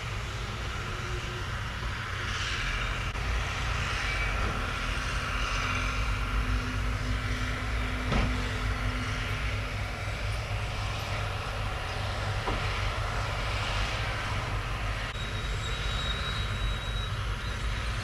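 Heavy diesel earthmoving machinery running: a dump truck tipping soil and bulldozers pushing dirt, with a steady low engine rumble. A steady hum sits over it for several seconds, and there is a single sharp knock about eight seconds in.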